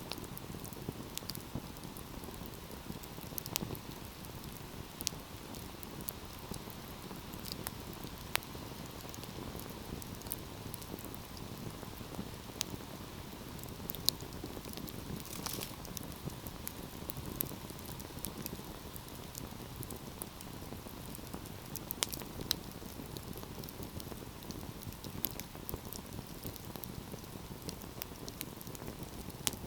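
Wood fire burning with a steady low hiss and rumble, and sharp irregular crackles and pops from the burning logs, a few louder snaps among them.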